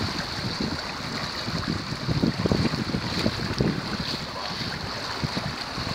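Wind buffeting the microphone in uneven gusts over the steady rush of water past the hull of a small sailboat under way.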